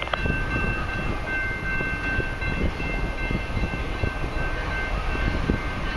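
Horn of an approaching CN diesel freight locomotive sounding a steady chord of several tones, heard over a low rumble of wind on the microphone.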